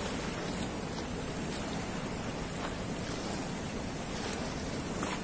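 Steady rush of fast, turbulent river water churning out below a barrage's gates.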